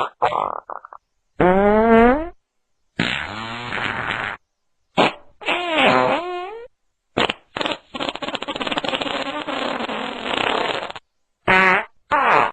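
A series of fart sound effects, one after another with short silences between: quick sputters at the start, several wobbling, pitch-bending farts, then one long raspy fart lasting about three seconds, followed by two short ones near the end.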